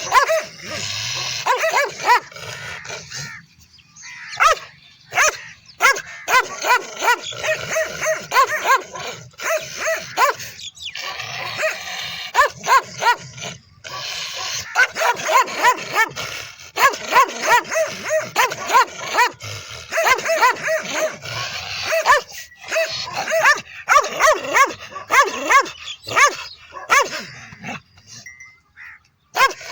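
Dog barking over and over in quick runs of short barks, with a few brief pauses.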